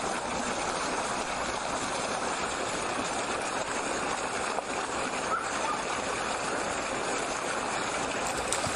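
Steady rushing of water churned up as a large fishing net is hauled in toward the bank.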